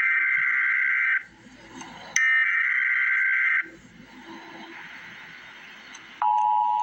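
Emergency Alert System SAME header: harsh buzzing digital data bursts, one ending about a second in and another about a second and a half long, separated by short gaps of faint hiss. Just before the end the steady two-tone EAS attention signal begins.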